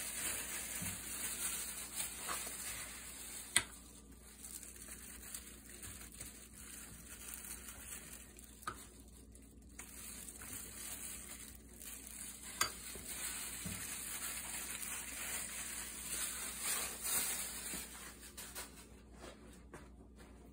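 Plastic-gloved hands squishing and rubbing wet jerk marinade over a halved chicken in a cast-iron skillet, a soft wet crackle with the glove plastic crinkling. A few sharp clicks sound against the pan, about three and a half, eight and a half and twelve and a half seconds in.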